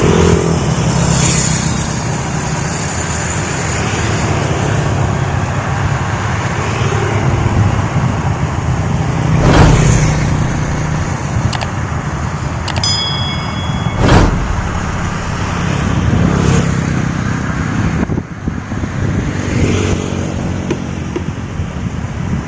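Combine harvester running steadily in a rice field, a continuous engine hum with mechanical noise over it. Two louder knocks come about ten and fourteen seconds in, and a brief high-pitched tone just before the second.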